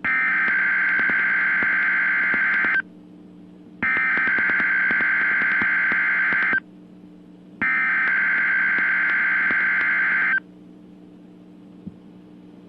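Emergency Alert System SAME header on NOAA Weather Radio: three bursts of digital data tones, each just under three seconds, with about a second's pause between them. The header codes a Required Weekly Test.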